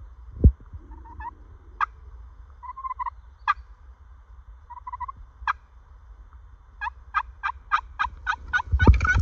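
Turkey clucks and cutts: sharp single notes spaced out at first with a few short yelps between them, then coming quicker in a run of about a dozen that breaks into a rattling gobble right at the end. A low thump about half a second in.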